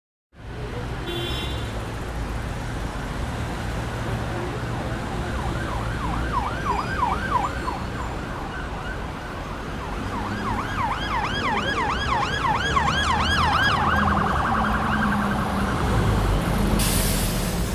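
Emergency vehicle siren in yelp mode, about four fast up-and-down sweeps a second, over a low traffic rumble. The yelp starts about six seconds in, breaks off briefly, comes back faster, and a short hiss sounds near the end.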